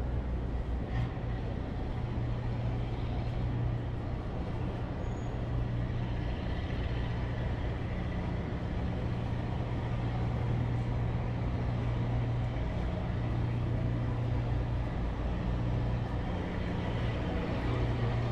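Steady city street traffic noise, with a low, continuous engine hum from vehicles, and one short click about a second in.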